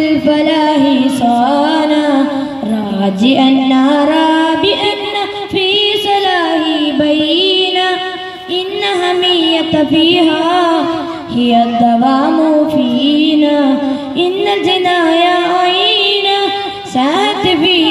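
A boy singing a devotional song solo into a handheld microphone, amplified over a PA, with long wavering, ornamented held notes and short pauses for breath.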